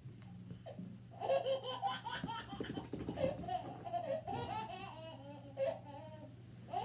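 A recording of a baby laughing, played through a TV's speakers, starting about a second in and going on in short repeated bursts of laughter.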